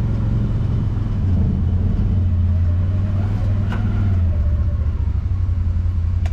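Side-by-side UTV engine running as it drives, a steady low drone that eases a little over the last couple of seconds.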